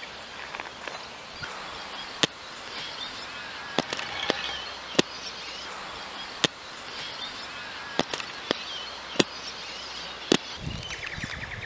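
Outdoor ambience: faint bird chirps over a steady hiss, broken by a string of about nine sharp clicks at uneven intervals.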